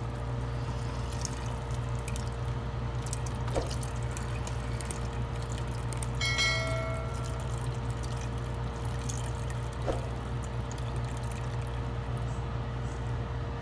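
Cornstarch slurry poured from a glass bowl into a pot of simmering sauce while a wooden spoon stirs it, over a steady low hum. There are a couple of soft knocks, and a short ringing ding about six seconds in.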